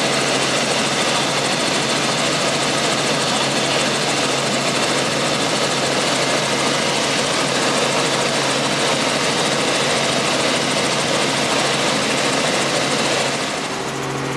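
Helicopter running, heard as a loud, steady rush of engine and rotor noise with a constant low hum. About a second before the end it turns a little quieter, with a steadier, more tonal engine hum.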